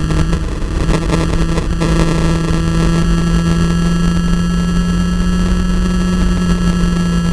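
Racing vehicle's engine held at a steady high pitch under heavy wind noise on the microphone, with the note beginning to climb near the end as it accelerates.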